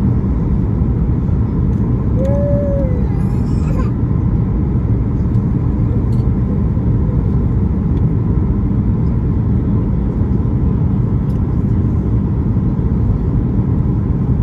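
Steady low roar inside a passenger jet's cabin from the engines and the airflow over the fuselage while the airliner descends on approach to land. A brief high voice rises and falls about two seconds in.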